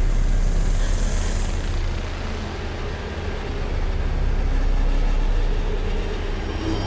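Deep, steady rumbling drone with a hiss that swells and fades about a second in.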